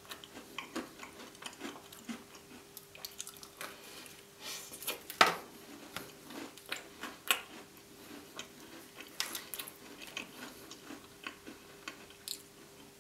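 Close-miked chewing of gingerbread softened with custard: irregular soft crunches and wet mouth clicks, with one sharper crunch about five seconds in.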